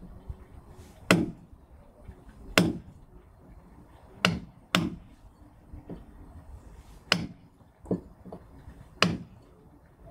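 Caulking mallet striking a caulking iron, driving oakum into a wooden deck seam to tuck in the loose ends: about six sharp blows at uneven intervals, with a few lighter taps between them.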